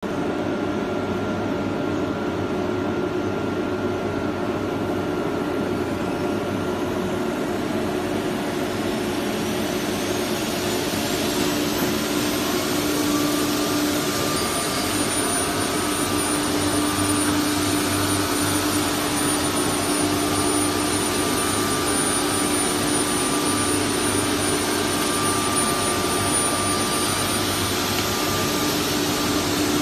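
CNC wood router with a saw-blade unit and dust extraction running, a steady loud machine noise. A thin high whine climbs for a few seconds about a third of the way in, then holds steady as a motor comes up to speed.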